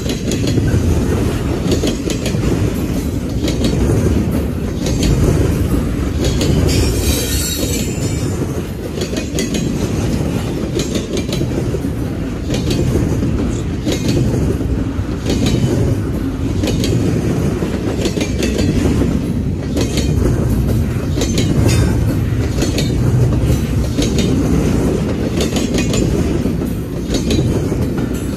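Double-stack intermodal container train rolling past at close range: a steady deep rumble of wheels and cars with repeated clickety-clack as wheels cross rail joints. A brief high-pitched wheel squeal comes about seven seconds in.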